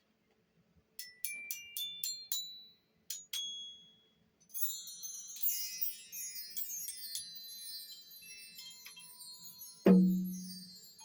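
Metallic bell-like percussion played by hand: a handful of single high ringing notes struck one at a time, then a long shimmering cascade of many high ringing notes. Near the end, one loud low struck note rings out.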